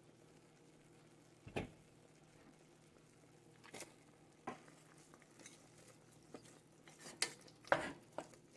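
A few scattered knocks and clinks of kitchenware at a stainless steel pot, then a wooden spoon stirring meat and chopped onion in the pot, knocking and scraping against it more often near the end.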